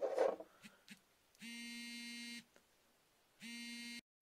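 Two buzzy electronic beeps, each about a second long with the same low, steady pitch, about a second apart; the second is cut off abruptly as the recording breaks off. A short scuff comes just before them, at the start.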